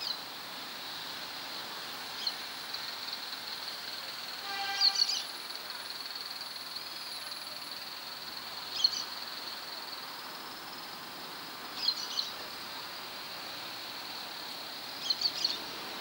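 Outdoor park ambience: a steady high-pitched insect drone, with short bird calls every three to four seconds.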